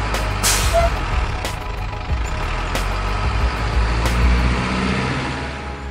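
Radio-controlled dump trucks running with a steady diesel-truck engine sound, with scattered clicks and a short hiss about half a second in.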